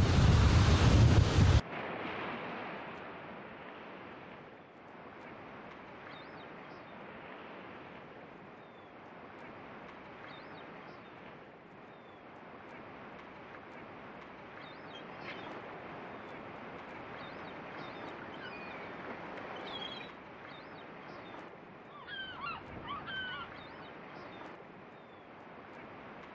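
Loud rushing of ocean waves cuts off about a second and a half in, giving way to a soft, steady wash of surf and wind. Scattered bird calls, short rising and falling chirps, come in over it and grow more frequent in the second half.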